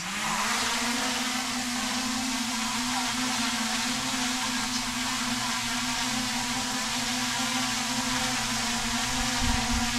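Small quadcopter drone's propellers spinning up with a rising whine as it lifts off, then a steady whir as it hovers. A brief low thump near the end.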